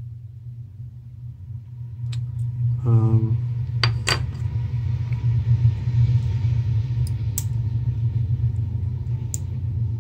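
A handful of sharp, small clicks of fine tweezers against the metal shutter housing of a Minox B subminiature camera as the torn shutter blades are picked out. Under them runs a steady low rumble that grows louder about two seconds in.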